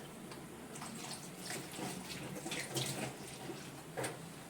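Guava leaves being washed by hand in water, with irregular splashing and dripping and a sharper splash about four seconds in.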